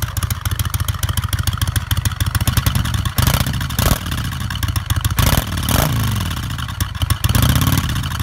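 1999 Kawasaki VN800 Classic's carbureted V-twin running on choke just after a cold start, idling with an even beat and revved several times in the second half, the pitch rising and falling with each blip.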